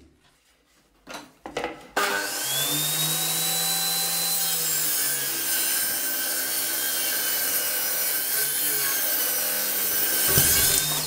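Table saw ripping a pallet-wood board to width. A few light knocks, then about two seconds in the loud, steady cutting noise comes in suddenly and holds while the board is pushed through.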